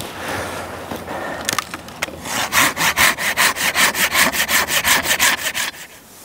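A hand saw cutting through a dry dead branch for firewood: after some handling, quick even saw strokes, about six a second, for a few seconds, then stopping near the end.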